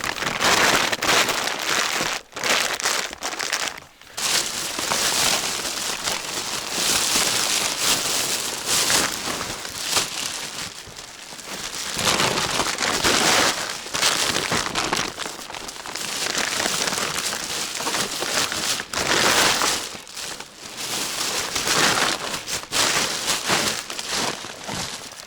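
Loud, irregular rustling and crinkling close to the microphone, swelling and easing in waves.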